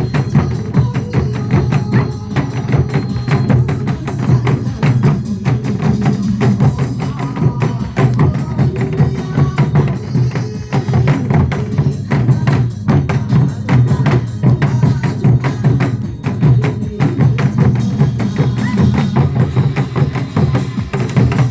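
A group of janggu, Korean hourglass drums, struck together in quick, steady rhythm over backing music with a melody line.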